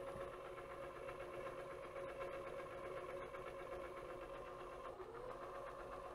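Carousel drive motor of a Sanjin DX-400 400-disc changer running with a steady hum as it turns the disc carousel round to the temp disc position. Its pitch dips briefly about five seconds in and rises back.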